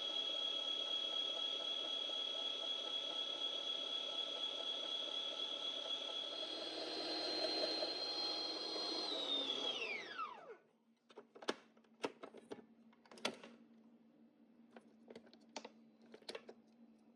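Electric blender running steadily on fruit, its pitch shifting slightly partway through, then switched off about ten seconds in and spinning down. A few light clicks and knocks follow.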